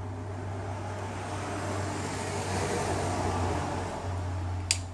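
Road-vehicle noise, likely a passing vehicle, that swells and then fades over a steady low hum. A single sharp click comes near the end.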